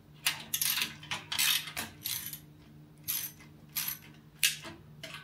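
Hand ratchet tightening a nut from under a steel gantry plate: short, irregular strokes of metallic clicking, about nine in all.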